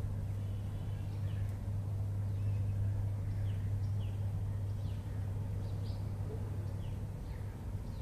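Birds chirping faintly over and over in short falling notes, several a second, over a steady low hum.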